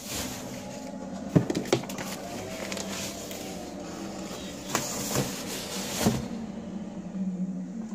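Cardboard box and packaging being handled: a steady rustle with several sharp knocks and clicks, over a steady low hum.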